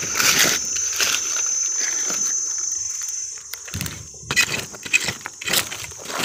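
Steady high-pitched insect drone, with scraping and rustling as a stick rakes through stony soil and dry leaves. The scrapes turn into sharper separate clicks and scratches a little past halfway.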